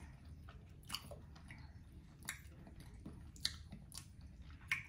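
Quiet close-up chewing of a cheesesteak, with several sharp wet mouth clicks.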